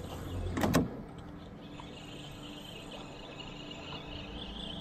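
Spinning reel being wound in, retrieving a cast lure: a low steady whirr. There is a brief sharp noise just under a second in.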